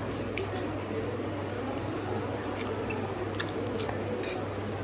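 Close-up eating sounds: instant noodles being slurped and chewed, with scattered short wet smacking clicks over a steady low hum.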